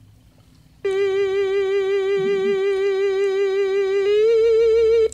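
Halloween motionette's built-in sound unit playing a loud electronic, theremin-like held note with a wavering vibrato, starting about a second in, stepping up slightly in pitch near the end and cutting off suddenly.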